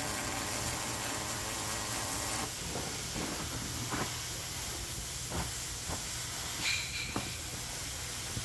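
Cobot MIG welding arc hissing and crackling, stopping about two and a half seconds in. After that come a few scattered clicks and knocks, with a brief high tone near seven seconds.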